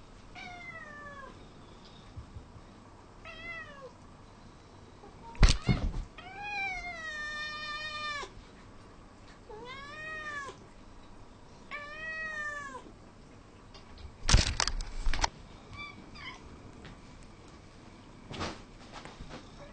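Domestic cats meowing over and over as they beg for food: about five separate meows, most falling or arching in pitch, one of them long and drawn out about six seconds in. Two loud knocks, about five and a half and fourteen seconds in, are louder than the meows.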